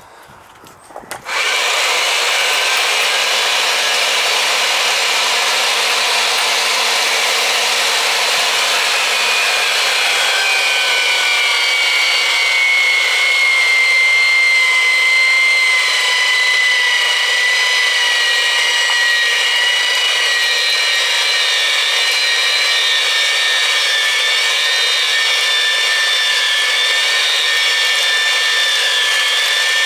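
Power pipe threader driving a threading die onto a pipe end: a steady motor whine with the grinding of the die cutting threads. It starts about a second in, and its pitch drifts slowly down as the die cuts.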